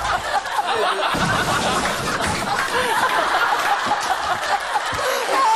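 A group of people laughing hard together, many voices overlapping in high, gliding laughs.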